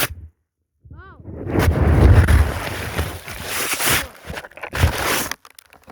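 Phone microphone buried in deep snow: muffled crunching, rustling and low buffeting as snow packs against it, after a brief dropout at the start, with a thump near the end.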